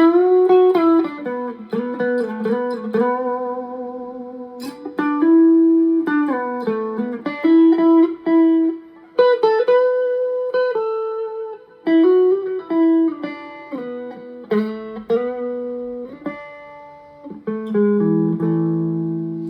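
Electric guitar played through a reverb pedal set to hall: picked single notes and short melodic phrases, with a held chord ringing near the end. The reverb is quite subtle.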